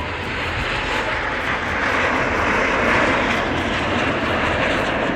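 Jet aircraft of the Italian aerobatic team passing in flight: a steady rushing jet roar that swells to its loudest two to three seconds in, then eases off.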